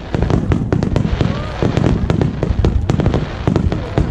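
Fireworks going off in quick succession: many sharp bangs and crackles a second over a deep, continuous rumble.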